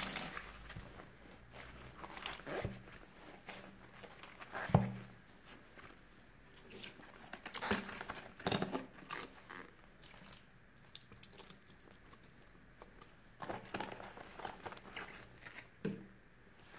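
Rubber-gloved hands squeezing wet, soapy sponges in a plastic basin, giving crackly, squishy bursts of foam and water with pauses between. There is one sharp knock about five seconds in.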